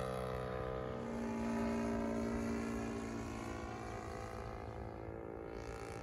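Engine of a radio-controlled Gipsy Moth scale model plane droning steadily in flight. It swells about two seconds in, then fades as its pitch sinks slowly.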